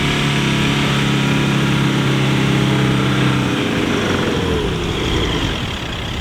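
A 4WD's engine held at high, steady revs while it pushes up through soft sand. After about three and a half seconds the pitch slides down as the revs ease off, with the climb bogging down; too-high tyre pressure is suspected.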